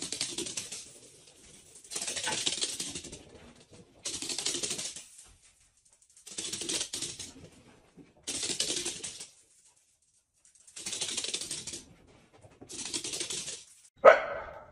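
Puppies' claws clattering on a wooden floor as they scamper in short dashes, each about a second long, coming about every two seconds. A sudden loud sound comes near the end.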